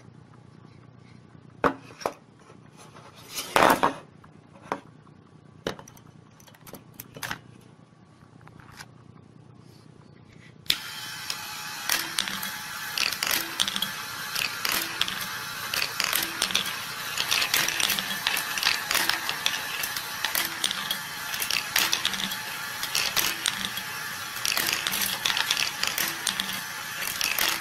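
Homemade wooden marble machine with steel balls. At first scattered sharp clicks and knocks as the balls drop and strike the wooden parts. About ten seconds in, the battery-driven mechanism starts and a dense, continuous clatter of balls rolling and rattling through the wooden track and bowls takes over.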